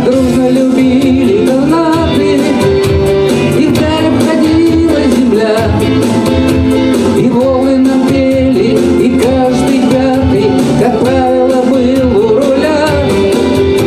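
Male singer performing a rock song live, his voice wavering over band accompaniment with a steady beat.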